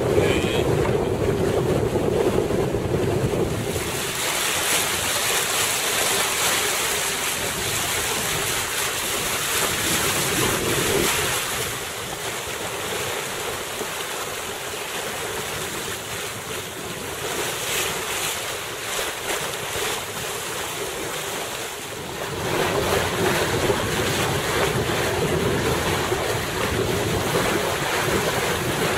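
Wind buffeting the microphone over water rushing and splashing along the hull of a small gaff-rigged sailing cutter under way. It eases for a stretch in the middle and picks up again later.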